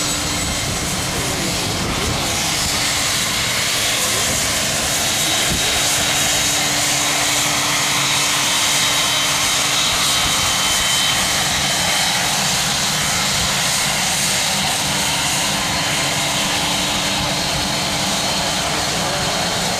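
WhiteKnightTwo's four Pratt & Whitney Canada PW308A turbofan engines running as the twin-fuselage carrier aircraft taxis close by: a steady jet rush with a high whine that comes in after a few seconds.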